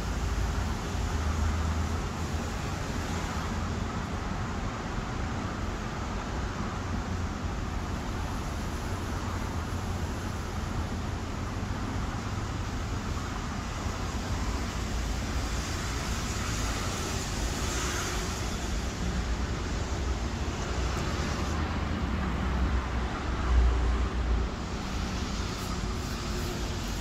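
Steady background road traffic: a low rumble with a hiss of passing cars, swelling briefly louder once near the end.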